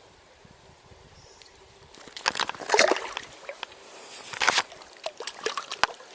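Water splashing and sloshing in irregular bursts with sharp slaps, starting about two seconds in: a freshly caught chub thrashing in the water as it is handled for unhooking.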